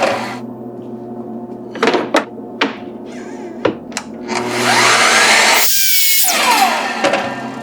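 Several sharp knocks of workpieces or parts being handled, then a power tool's electric motor spins up, runs for about two seconds and winds down with a falling whine near the end.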